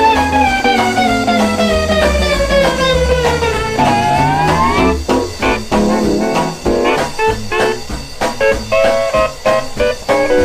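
Instrumental break of a honky-tonk country record: a guitar note bends and slides slowly down over about four seconds, then a run of quick picked guitar notes over a bass line.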